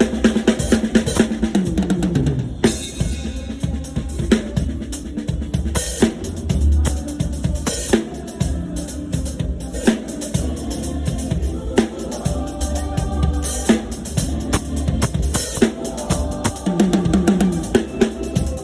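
Live drum kit playing a groove, with kick drum, snare and rimshots to the fore and other band instruments underneath.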